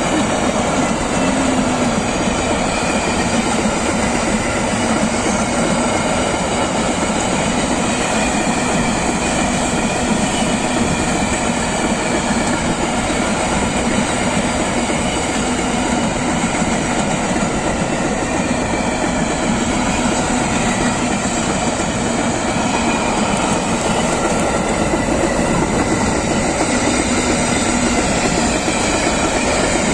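Freight train wagons rolling past at close range: a loud, steady rumble and clatter of steel wheels on the rails.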